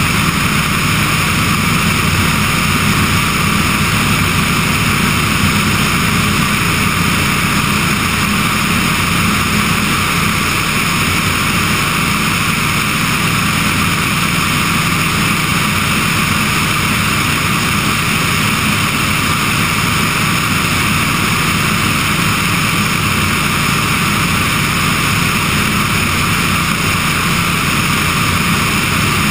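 Remos G3/600 light sport aircraft in flight: steady engine and propeller drone mixed with wind rushing past an outside-mounted microphone.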